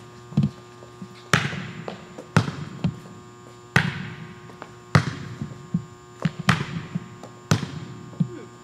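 A Mikasa MVA200 volleyball struck back and forth between two players' hands and forearms in sets and passes: about six sharp slaps, one every second or so, each echoing in a large gym. A steady electrical hum runs underneath.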